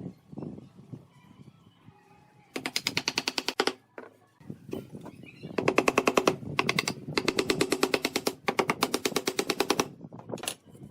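A power tool hammering rapidly, about a dozen blows a second, in two bursts: a short one about a third of the way in, then a longer run of about four seconds from the middle.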